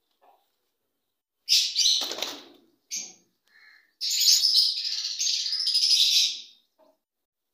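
Caged green parakeets screeching: a harsh call about one and a half seconds in, a few short calls, then a long run of shrill screeching from about four seconds in that stops shortly before the end.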